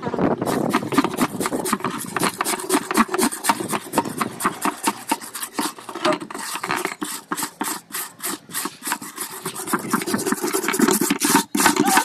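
Scrub brush scrubbing the wet, grimy plastic wash tub of a semi-automatic washing machine in fast back-and-forth strokes, about four a second.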